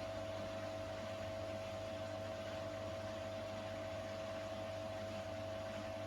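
Beko WTK104121A washing machine's drain pump running, a steady hum with a constant high tone, pumping out the last of the water at the end of a rinse.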